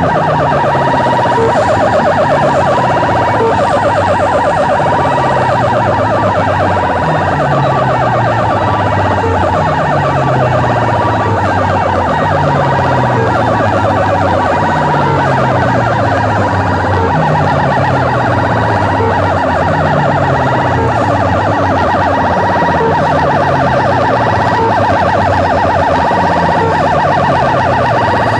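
Banks of trumpet horn loudspeakers on a sound-box truck playing a loud, siren-like electronic tone: a fast warble over a falling sweep that repeats about every one and a half to two seconds.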